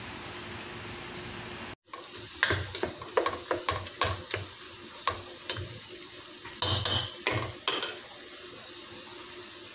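Spatula stir-frying vegetables in a stainless-steel wok: a quick run of scrapes and knocks against the metal pan from about two seconds in until near the end, over a steady sizzle of frying.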